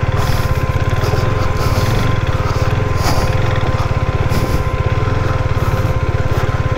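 Motorcycle engine running at low revs with an even, rapid pulsing as the bike is ridden very slowly over rough ground.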